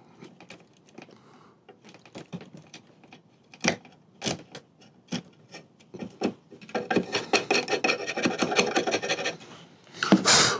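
Wood scraping and rubbing against wood as a joint of an antique table leg is worked and test-fitted by hand: a few light knocks, then a few seconds of quick, dense scraping strokes, with a louder scrape just before the end.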